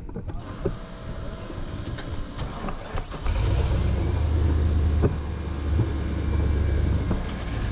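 Rock crawler buggy's engine running low, then revving up much harder about three seconds in as it is driven up a steep rock ledge, with a few sharp knocks.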